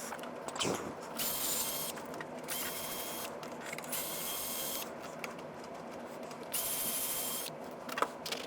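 A power screwdriver running in three short bursts of about a second each, backing screws out of a power supply's panel.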